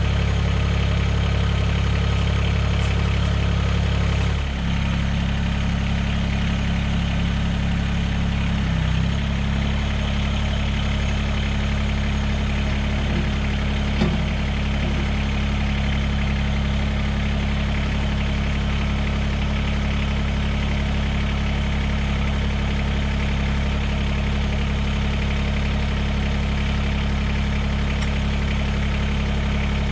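Mahindra eMax 20S HST compact tractor's diesel engine running steadily, its note shifting briefly about four and a half and nine seconds in.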